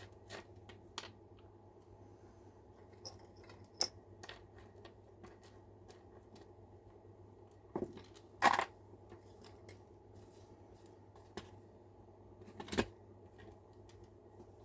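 Scattered small clicks and taps of tools and tiny slot-car parts being handled on a work table, the loudest about four seconds in, near the middle and near the end, over a faint steady hum.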